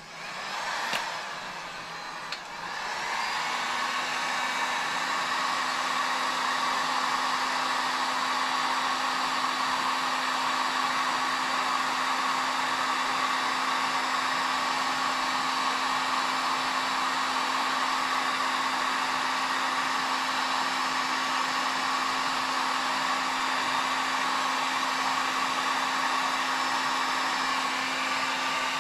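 Electric heat gun running, a steady rush of blown air with a low motor hum, used to shrink heat-shrink tubing onto a rod. It comes up to full blow over the first few seconds, then holds level.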